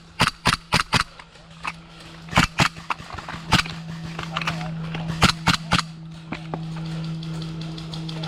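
Airsoft guns firing sharp single shots: four in quick succession in the first second, scattered shots over the next few seconds, and three more in a quick run a little past the middle. A steady low hum starts about a third of the way in.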